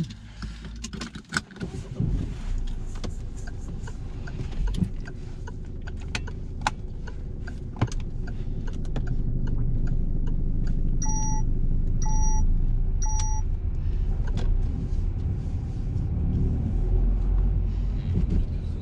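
Inside a Peugeot car as it pulls away: the engine and road rumble build gradually, with a scatter of sharp clicks in the first few seconds. About halfway through, the car's electronic warning chime sounds three times, about a second apart.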